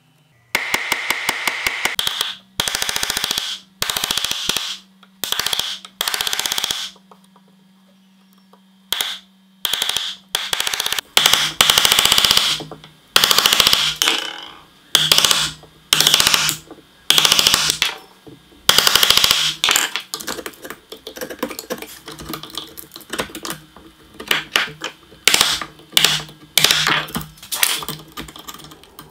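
Mallet driving a chisel into wood, chopping out the corners of a routed cross-shaped inlay recess: bursts of rapid sharp taps, each lasting a second or so, with short pauses between them.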